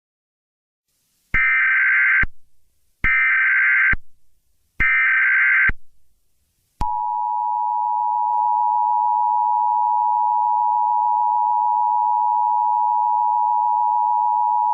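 Emergency Alert System tones: three short bursts of the SAME digital header, each just under a second, then the steady two-tone attention signal from about seven seconds in. The tones announce an emergency alert broadcast.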